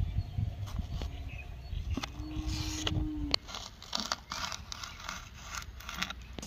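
Kitchen knife cutting vegetables: irregular knocks and scrapes of the blade. A brief steady hum about two seconds in lasts just over a second.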